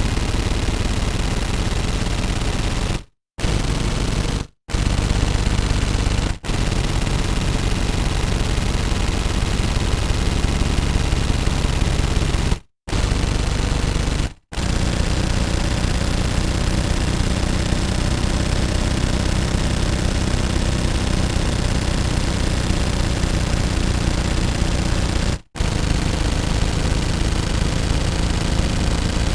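Automatic pistol firing full-auto in long, rapid continuous bursts, broken by several short pauses.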